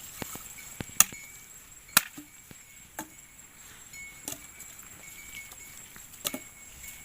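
A series of sharp chopping or striking knocks, roughly one a second, the loudest two about a second and two seconds in. A steady high insect drone continues underneath.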